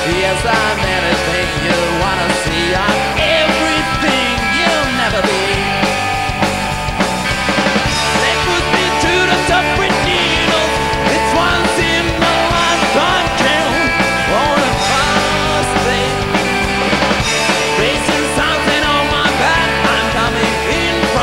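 Rock band playing live with no vocals: electric guitar lines that bend and waver in pitch over sustained chords, bass and drums, steady and loud.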